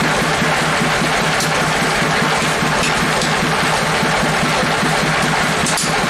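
Sawmill machinery running steadily, a constant loud hum of the saw's drive, with a few sharp clicks near the end.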